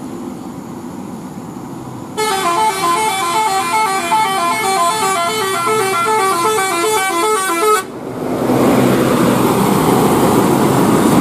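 Telolet multi-tone air horn on a Scania K310 bus, starting about two seconds in and playing a quick stepping tune of alternating notes for about six seconds. Then the horn stops and the bus's engine and tyre noise swells to a loud rush as it passes close.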